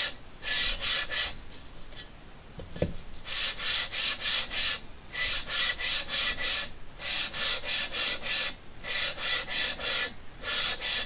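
Cylinder barrel of a VW 2-litre air-cooled engine twisted back and forth by hand on its cylinder head with grinding paste between them: a gritty metal-on-metal rasping in quick strokes, in runs broken by short pauses. The two sealing surfaces are being lapped together.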